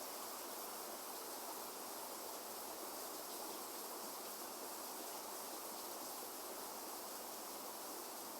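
Steady rain falling, an even hiss that stays constant with no sudden claps or rumbles.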